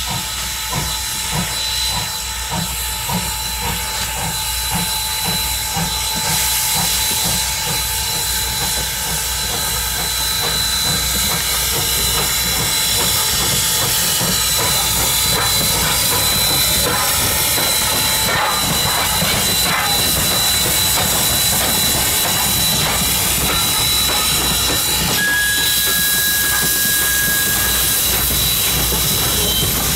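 Norfolk and Western No. 475, a 4-8-0 steam locomotive, working past with a passenger train: regular exhaust chuffs at first, merging into a steady rush of steam hiss and rolling train as it comes alongside.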